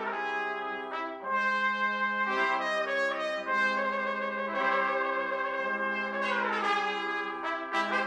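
Trumpet ensemble of two C trumpets, two B-flat trumpets and two flugelhorns playing held chords together, with the voices sliding downward together a little after six seconds in.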